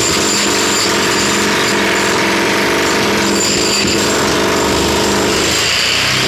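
Jackhammer running continuously at full power, breaking out a hole for a plumbing drain, and stopping at the very end.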